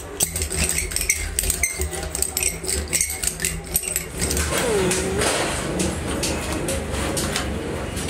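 A small brush dabbing and scraping rubber cement onto the rough inner rubber of a tyre, in quick scratchy strokes, over a steady low engine-like hum.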